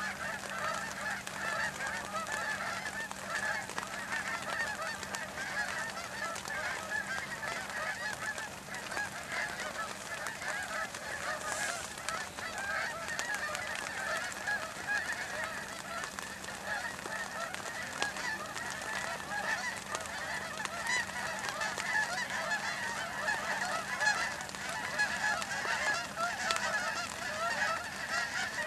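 A large flock of geese honking continuously overhead, many birds calling at once in a dense, overlapping chorus of short honks.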